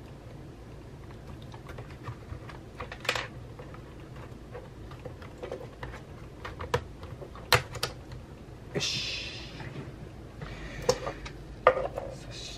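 Light clicks and taps of computer parts and small tools being handled on a desk during reassembly of a Mac mini, with a few sharper clicks and a short scraping rustle a little past the middle.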